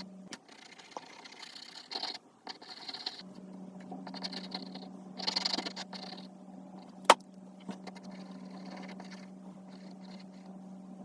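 Stabilo CarbOthello pastel pencils scratching across Clairefontaine Pastelmat paper in short bursts of shading strokes, with a sharp click about seven seconds in. A steady low hum runs underneath.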